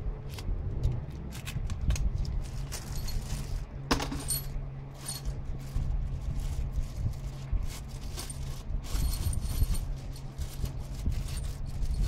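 Small metal parts clinking and scraping as a bolt is taken out of a plastic hardware bag and the valve spring compressor's steel bracket is set down on an aluminium cylinder head, with a sharper knock about four seconds in.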